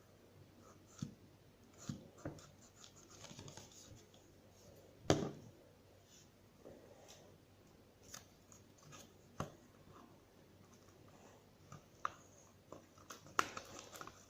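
Homemade glue slime being stirred and worked by hand: scattered soft sticky clicks and taps, with one louder tap about five seconds in and a quick run of them near the end.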